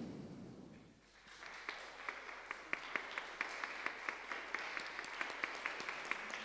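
Audience applauding in a hall, starting about a second and a half in after a brief hush, with many separate hand claps standing out; a modest, fairly quiet round rather than an ovation.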